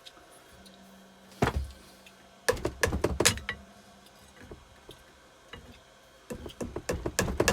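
Metal knocks and clatter of a pry bar being worked against a Keeway TX125 motorcycle engine's casing to lever off a stuck part: a single knock about a second and a half in, a cluster around three seconds, and a rattling run of knocks near the end.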